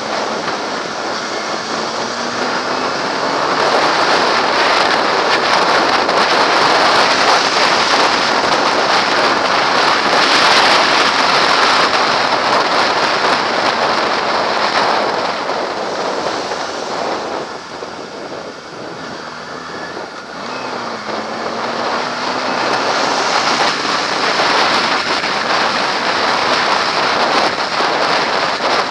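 Wind noise rushing over a helmet-mounted camera on a moving Kawasaki ZX-6R motorcycle, with the bike's inline-four engine faint beneath. The wind dies down for a few seconds past the middle, and there the engine's pitch can be heard sliding up and down.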